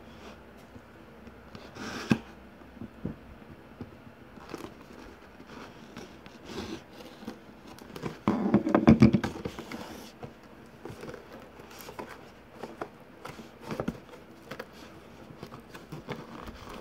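Fingers picking and scratching at the tape and flaps of a cardboard box, with scattered small clicks and scrapes and a louder stretch of rubbing and rustling about eight seconds in.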